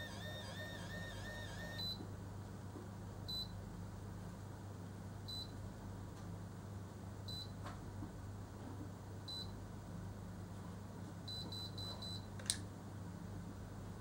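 Automatic rotating hair curler: a wavering tone stops about two seconds in, then the curler beeps once about every two seconds while timing the curl, and a quick run of four beeps near the end signals the curl is done. A sharp click follows.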